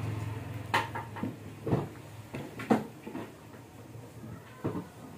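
Phones and phone boxes being handled on a glass shop counter: a series of irregular light knocks and clacks, the loudest about halfway through.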